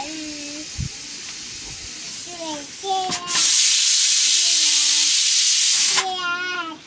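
A loud, steady hiss that starts about three seconds in and cuts off suddenly nearly three seconds later, with children's voices before and after it.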